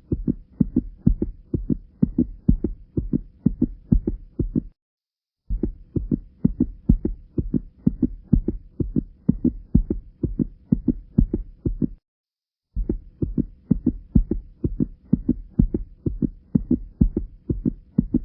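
Rhythmic low thumping, several beats a second, in looped stretches of about seven seconds, broken by two short silences about 5 and 12 seconds in. It sounds like a percussion-only outro beat.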